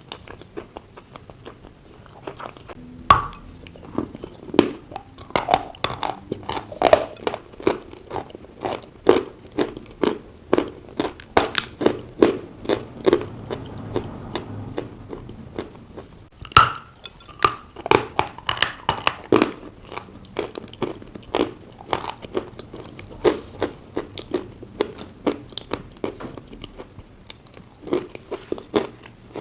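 Close-up crunching and chewing of dry chalk eaten with creamy clay paste: sharp bites followed by a steady run of crunches, two to three a second.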